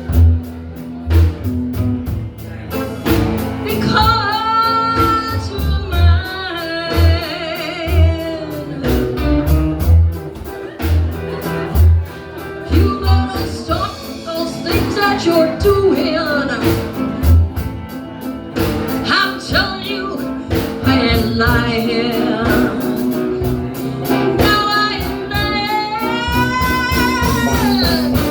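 Live blues band playing a slow number, with drums and bass keeping a steady beat under guitar and a sustained, bending lead melody line.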